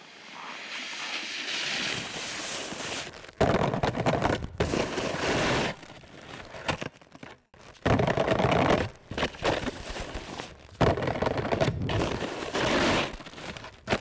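Skis scraping along a metal handrail and crunching on packed snow, in several separate runs that start and stop abruptly.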